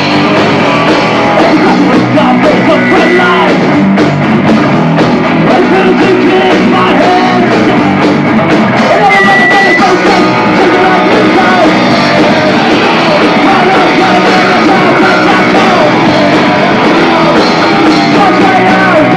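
Punk rock band playing live: electric guitars and drums with shouted vocals, loud and continuous. Recorded on a VHS-C camcorder, the sound is harsh and distorted.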